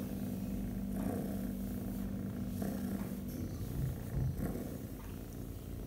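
Young orange tabby kitten purring steadily while being stroked along its back.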